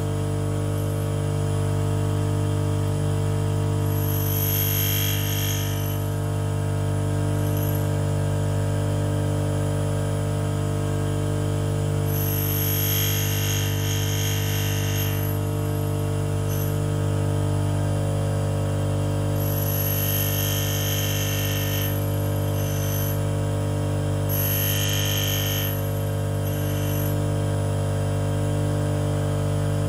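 Union tool and cutter grinder running with a steady motor hum, its wheel grinding the end cutting face of an endmill in four short passes of two to three seconds each, heard as a high hiss that comes and goes as the cutter is worked against the wheel.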